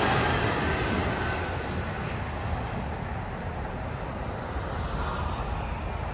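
Jet airliner noise fading away over the first few seconds as the plane passes overhead on final approach, leaving a steady low hum.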